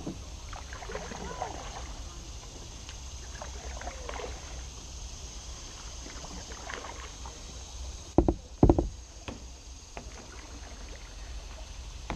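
Kayak paddling on calm water: paddle strokes in the water over a steady low rumble. About eight seconds in come two dull knocks close together, the loudest sounds.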